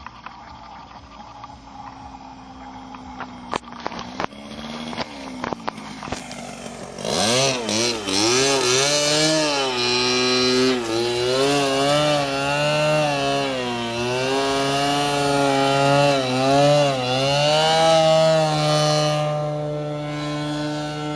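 Engine of a radio-controlled aerobatic model airplane, faint at first with a few clicks, then loud from about seven seconds in as the plane passes close. Its pitch swoops up and down repeatedly with throttle changes and the plane's passes, then steadies and fades slightly near the end.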